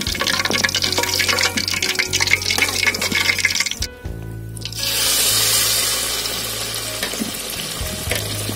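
Marinated chicken pieces deep-frying in hot oil, crackling and sizzling. After a short break about four seconds in, a louder, steadier hiss as a fresh piece fries in the bubbling oil.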